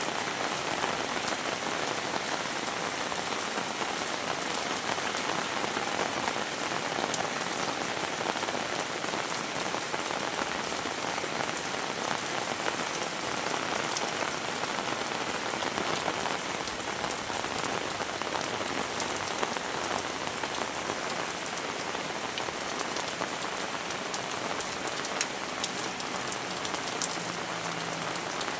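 Heavy tropical rain falling steadily, a dense even hiss of drops, with a few sharper drop impacts near the end.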